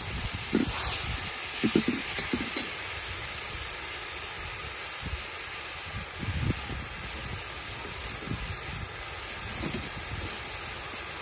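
Corn pieces and chopped seasonings sizzling in a cast-iron pot: a steady hiss, with a few knocks and scrapes of the metal ladle stirring in the first couple of seconds.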